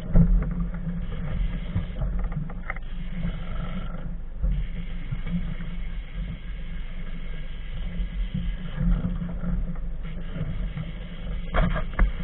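Uneven low rumble of wind and sea buffeting the microphone on a small open boat, with a few faint ticks.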